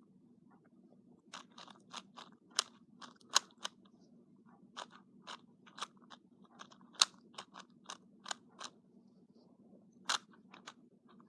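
Plastic clicks of a 2x2 Dayan Zhanchi speed cube's layers being turned during a solve. The clicks come in short irregular flurries with brief pauses between them.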